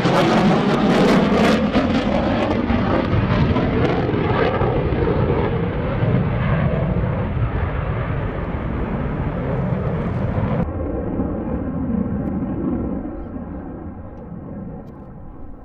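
Loud jet noise from an F-35A Lightning II fighter's single Pratt & Whitney F135 afterburning turbofan as it flies a display pass, crackling at first and then easing off. About ten seconds in the sound changes abruptly, as at an edit, losing its top end and growing quieter.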